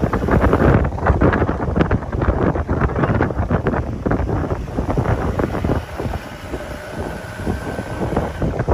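Heavy wind buffeting the microphone in gusts, over a dual-cab 4WD ute's engine running as the ute drives slowly through soft beach sand.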